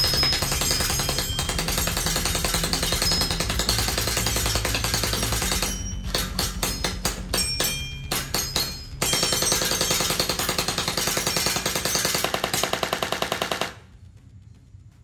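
ARP9 electric gel ball blaster with a metal gearbox firing on full auto: a fast, steady rattle of shots. In the middle it breaks for a few seconds into separate single shots, then rattles again and stops suddenly near the end.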